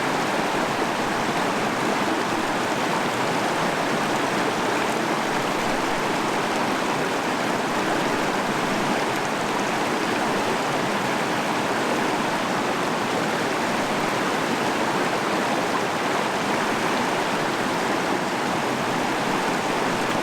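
Running water of a stream, a steady, unbroken rushing flow.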